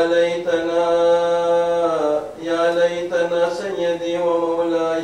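A man chanting a melodic religious recitation, holding long steady notes with a short break about two seconds in.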